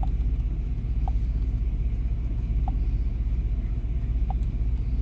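1998 Chevy C1500 pickup engine idling with a steady low rumble; it runs smoothly here, since its misfire shows only at part-throttle cruise.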